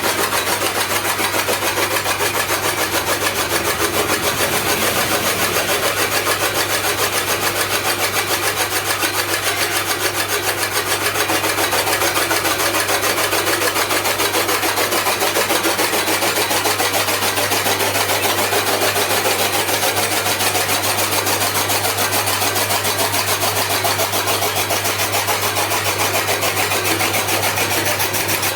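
Chaff cutter machine running steadily, a constant low hum under a dense, rapid mechanical clatter that does not change in level.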